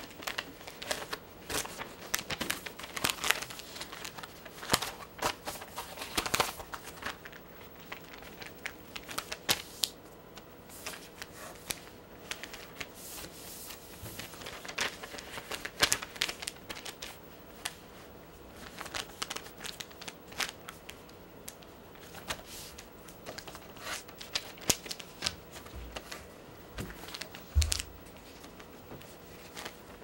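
A large sheet of origami paper being handled and folded on a table: irregular rustling and crinkling of the paper as it is turned and creased, with a few soft thumps near the end.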